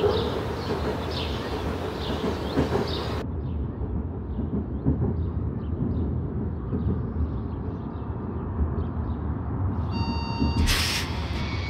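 Low steady vehicle rumble with short high chirps over it, which turns abruptly muffled about three seconds in. Near the end a few steady electronic tones sound, then a short loud burst of noise.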